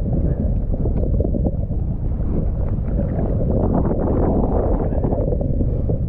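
Wind buffeting the microphone of a camera moving fast over open water: a dense, steady low rumble, with water rushing and splashing close by.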